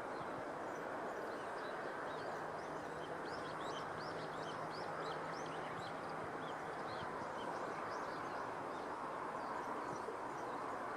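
Rural field ambience: a steady rushing background noise, with a small songbird giving a quick run of high chirps through the first two-thirds that then thins out.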